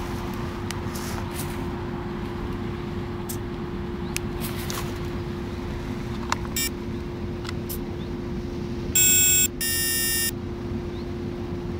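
Two loud electronic beeps, about half a second each, from an Esky Honey Bee King 4 RC helicopter's electronics as its battery is connected, powering up the controller, preceded by a brief short chirp. Small handling clicks come in the first half over a steady low hum.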